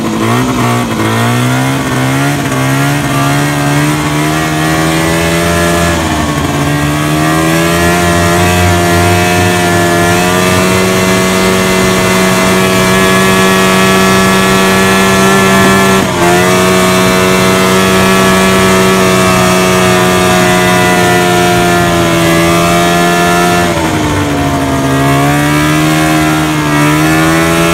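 A 1974 Polaris Electra snowmobile's 340 cc two-cylinder, air-cooled two-stroke engine under way. Its pitch climbs as it speeds up in the first seconds and again around six and ten seconds in, then holds steady. It dips for an instant about sixteen seconds in, eases off around twenty-four seconds and picks up again near the end.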